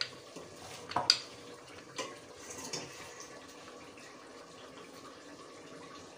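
A rolling pin knocking and rolling on a board as dough is rolled out thin: a few sharp knocks in the first three seconds, then a faint steady hiss.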